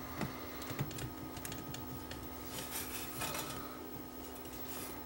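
Small scattered clicks, taps and rubbing as hands work a circuit board and its wiring back into place inside a Technics RS-676 cassette deck chassis, over a faint steady hum.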